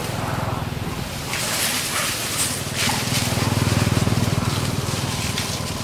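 Dry leaf litter rustling and crackling under running macaques, over a steady low rumble that swells in the middle.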